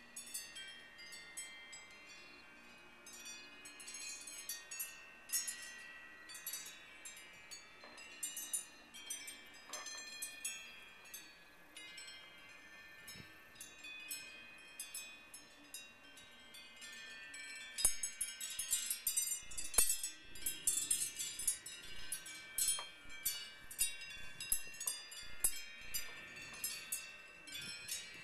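Wind chimes ringing in irregular clusters of strikes, more often and louder from about two-thirds of the way in.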